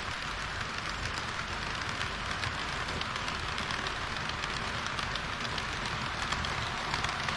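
HO-scale model train running on the track: a steady rolling hiss of wheels on rail, with faint irregular clicks.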